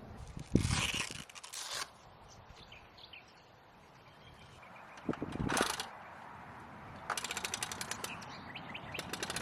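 Mechanical knocks and clanks, then a fast, even run of ratchet-like clicks, roughly a dozen a second, in the second half.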